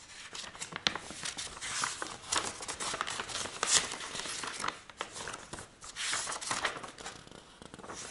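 Paper pages of an instruction booklet being turned and handled, a run of rustles and crackles with a few sharper snaps.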